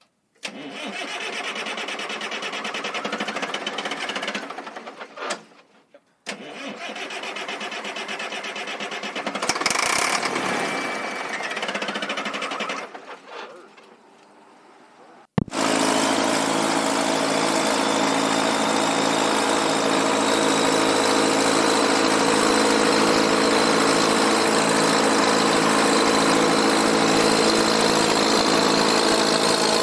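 Caterpillar 955H crawler loader's diesel engine being cranked over twice, the second try bringing a louder burst about ten seconds in before it fades. After a sudden break about fifteen seconds in, the diesel runs steadily under a faint high whine that slowly rises, as the loader drives.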